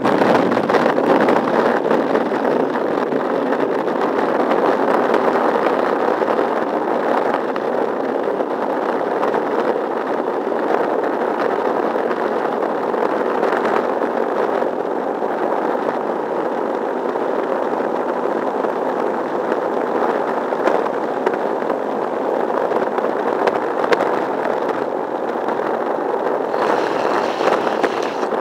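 Longboard wheels rolling over asphalt: a steady, loud road rumble picked up by a camera mounted on the board itself.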